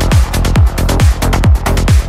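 Trance music with a steady four-on-the-floor kick drum, a little over two beats a second, under hi-hats and sustained synth pads.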